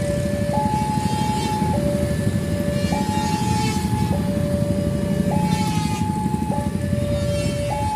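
A two-tone warning signal alternating steadily between a high and a low note, each held a little over a second, over the continuous low rumble of a heavy vehicle running.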